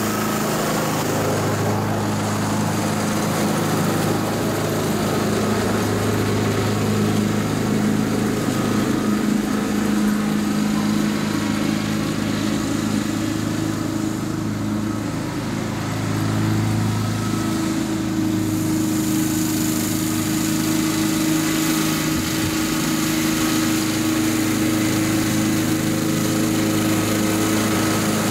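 Honda HRX217 walk-behind lawn mower's single-cylinder four-stroke engine running steadily while mowing grass.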